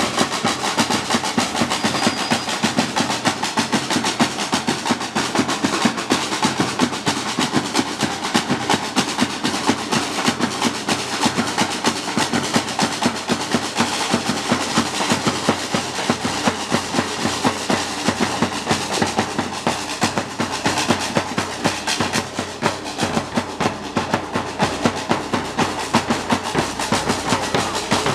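Batucada percussion ensemble of samba drums playing a fast, even rhythm of many strikes a second without a break.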